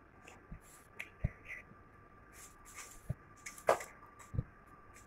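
Two kittens play-fighting: scattered light taps, clicks and a few dull thumps, with brief scratchy rustles, as their paws and claws scuffle on the floor covering and a sheet of paper.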